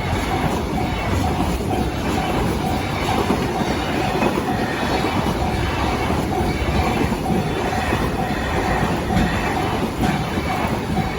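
Express container freight train running past at speed: a steady loud rumble with wheels clattering over the rail joints. A faint whine pulses a few times a second.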